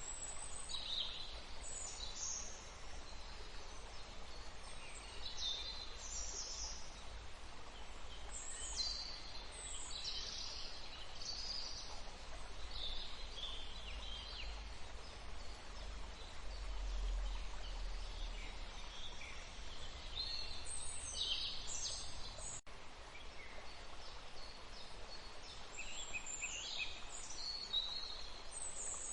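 Several wild birds calling and chirping in short high-pitched phrases scattered throughout, over a steady hiss of running water.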